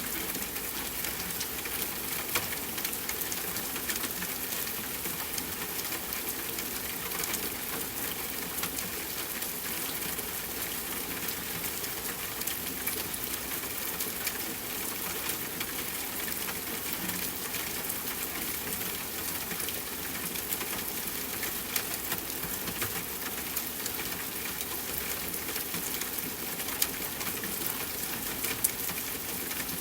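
Soft, steady rainfall: a dense patter of fine drops, with a few sharper drips standing out now and then.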